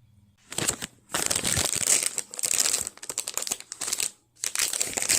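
Packaging crinkling and rustling as it is handled, in irregular bursts that start about half a second in, with a brief pause a little after four seconds.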